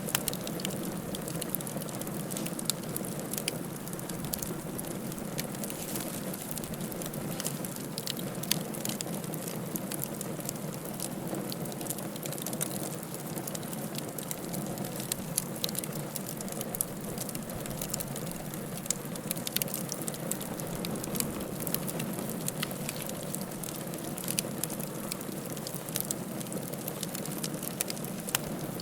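Wood fire burning in a fireplace, with a steady low rush and frequent small crackles and occasional sharper pops.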